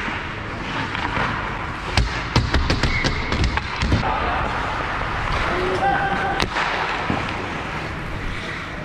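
Ice hockey sticks and puck knocking sharply on the ice. A quick cluster of knocks comes about two to three seconds in and a single one about six and a half seconds in, over the steady scrape and hiss of skates, with a few faint distant shouts.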